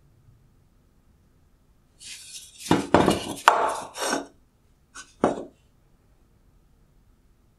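A 2017–2018 Kia Forte halogen headlight projector being turned over and set down on a wooden workbench: a cluster of clinks and knocks for about two seconds, then two short knocks.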